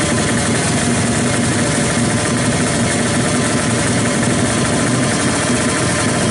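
Drag-build Kawasaki Ninja 350cc motorcycle engine running at a steady, unchanging speed, loud and even throughout without revving.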